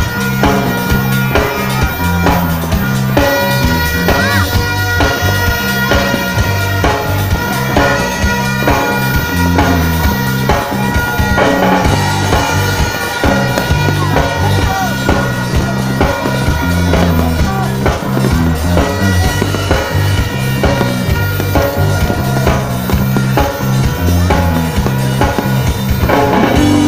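Music with a steady drum-kit beat and a repeating bass line.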